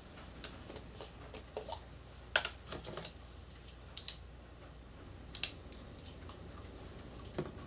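Light plastic clicks and taps from a small bottle of pure water being handled and opened, scattered irregularly with the sharpest click about five and a half seconds in, over a faint steady room hum.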